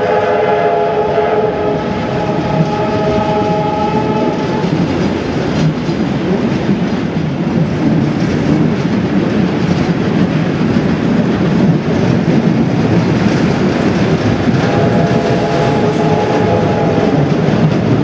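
Heritage trains running side by side, wheels rumbling and clattering on the track. A train whistle sounds a steady chord for about four seconds at the start and again for about two seconds near the end.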